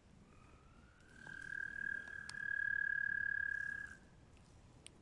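A frog's long, steady, high trill that rises slightly in pitch as it starts, holds for about three and a half seconds, then stops.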